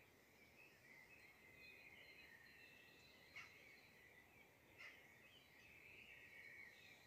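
Near silence: a faint high-pitched background chatter, with two small clicks about three and a half and five seconds in.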